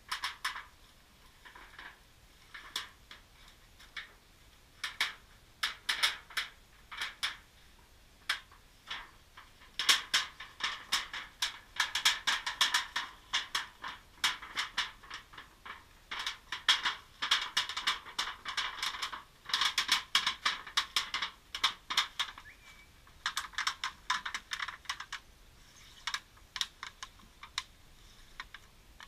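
Thin sheet-metal roll-up stove flue pipe crackling and clicking as it is flexed and rolled round a titanium storage tube by hand: quick, irregular sharp clicks, thickest in the middle, with the low end dulled by a camera's waterproof housing.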